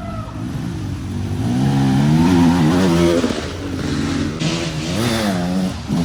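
Off-road dirt bike engines racing past, revving up and backing off. Two rises and falls in pitch come through, under a steady low engine note.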